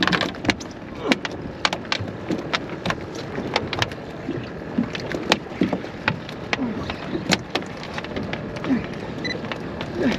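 Water slapping and gurgling against the hull of a small drifting center-console boat, with irregular sharp knocks and clatter from deck and gear.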